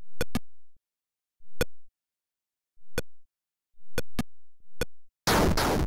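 Retro video-game blips from a Pong-style animation, about seven short beeps at uneven intervals as the ball bounces off the paddles and walls. Near the end a loud hiss of static-like noise cuts in, pulsing rapidly.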